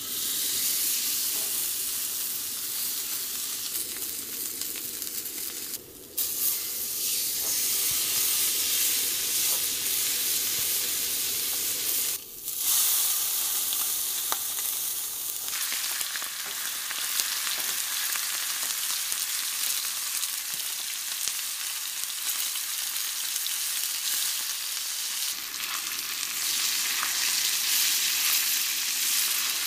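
Thick steak searing in a hot black skillet: a loud, steady sizzle that starts as the meat goes into the pan and twice drops out for a moment. Near the end it sizzles in foaming butter.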